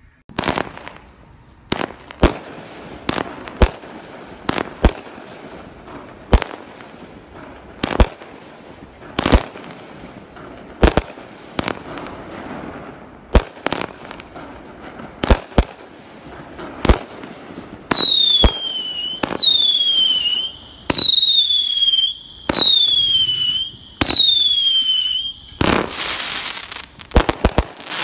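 A 'Just Looking' multi-shot consumer fireworks cake firing: sharp bangs about a second apart, then five whistles in a row, each falling in pitch. Near the end comes a dense, loud rush of noise.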